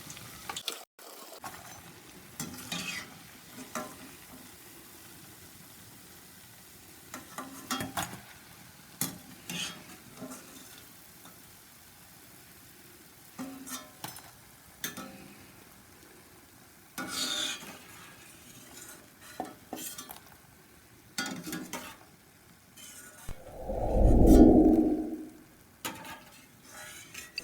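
Batter-coated plantain bajji frying in a pan of hot oil with a faint sizzle, while a metal utensil knocks and scrapes against the pan now and then as they are turned and lifted out. Near the end there is a loud, dull, low rumble lasting about a second and a half.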